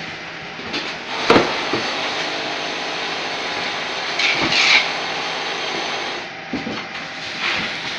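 Vertical form-fill-seal packing machine with its weigher running: a steady mechanical whirr with several knocks and clatters at uneven intervals, the loudest about a second in, and a brief hissing rattle about halfway.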